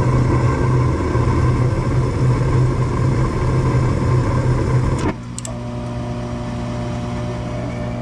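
Gas furnace motor running with a loud, steady low hum. It cuts off abruptly about five seconds in, leaving a quieter, even hum.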